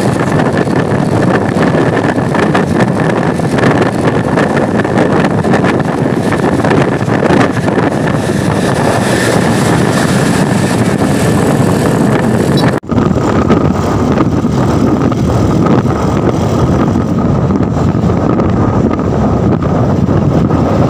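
Steady road and engine noise from driving alongside a truck, with wind buffeting the microphone. The sound drops out for an instant about 13 seconds in and comes back duller.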